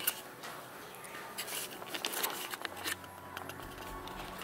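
Scattered light rustling and clicking of a handheld camera being moved and handled, over a faint steady room hum.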